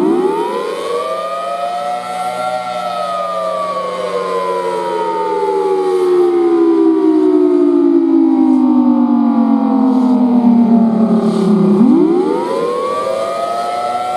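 Federal Signal Thunderbolt 1003 outdoor warning siren sounding the attack signal, a wail: the pitch climbs quickly, peaks a couple of seconds in, then slides slowly down for about nine seconds before climbing again near the end.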